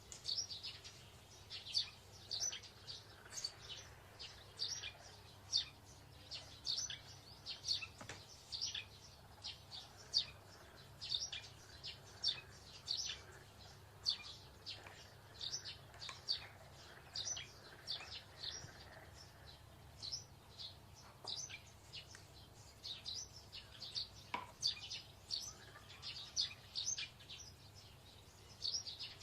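Small birds chirping: short, high chirps repeated a couple of times a second throughout, over a faint low hum.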